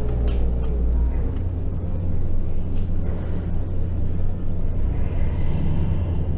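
Steady low rumble of a domed baseball stadium's ambience, with faint crowd noise above it.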